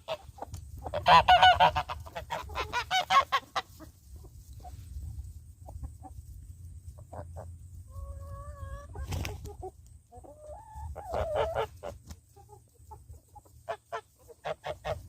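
Domestic chickens clucking and geese honking, with the loudest burst of calls about a second in and another flurry around eleven seconds. A single sharp knock comes about nine seconds in.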